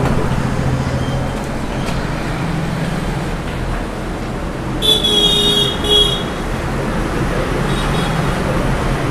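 Steady street traffic noise with a low hum. About five seconds in, a vehicle horn sounds a high-pitched double toot.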